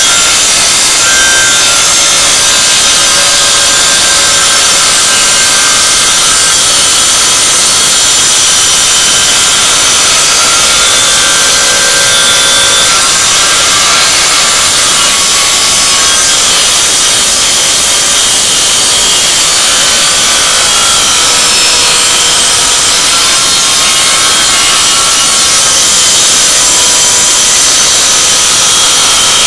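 Corded circular saw running steadily under load as its blade cuts along a rubber snowmobile track.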